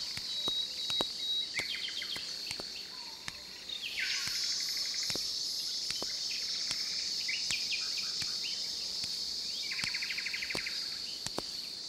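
Steady high-pitched insect chorus that grows louder about four seconds in, with birds calling over it: a rapid trill about four seconds in, another near the ten-second mark, and a few short chirps between them.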